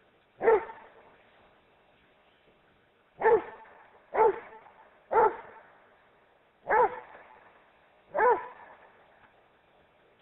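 Rhodesian Ridgeback barking six times at a person hidden behind a woodpile, single loud barks a second or more apart.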